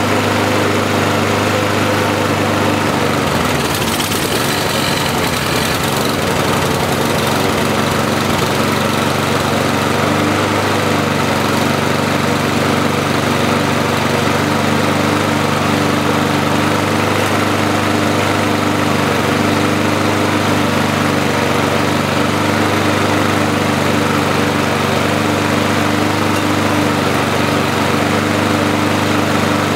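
Briggs & Stratton single-cylinder four-stroke lawnmower engine running steadily, left alone with one of its governor springs missing and a freshly fitted carburettor diaphragm and gasket. Its note wavers briefly about four seconds in, then settles again.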